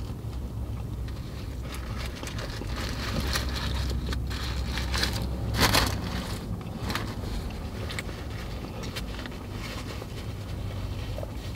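Butcher-paper sandwich wrapper crinkling and rustling in the hands, with one louder rustle a little past halfway, over a steady low hum in a vehicle's cabin.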